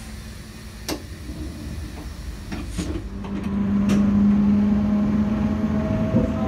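V set electric intercity train pulling away, heard from its open doorway. There is low rumble and a few sharp clunks, then about halfway in a steady electric motor hum sets in and the running gets louder as the train picks up speed.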